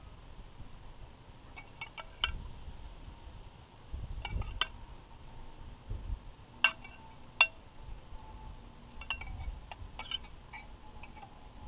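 Metal spoon clinking against a glass bowl and a metal serving platter while marinade is spooned over smashed potatoes: about a dozen light, ringing clinks at irregular intervals, the loudest two near the middle.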